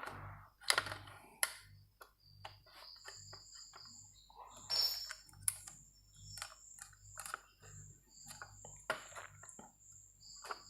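Light, irregular clicks and taps of small plastic laptop parts being handled and fitted back into place in an opened laptop chassis.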